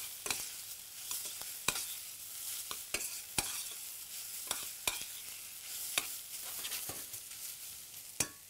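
Green beans frying in a hot pan, sizzling steadily while being stirred, with irregular sharp clicks of the utensil against the pan.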